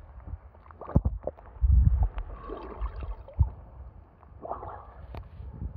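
Water sloshing and splashing right at a camera that rides the surface beside a swimmer's strokes. The loudest part is a series of irregular low thuds, heaviest about two seconds in, as water knocks against the camera.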